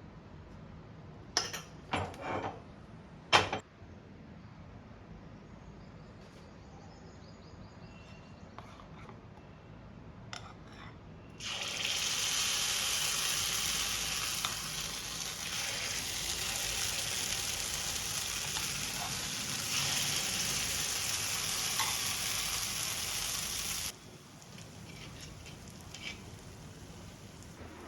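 A few sharp clatters, then water running hard from a tap for about twelve seconds, switched on and off abruptly.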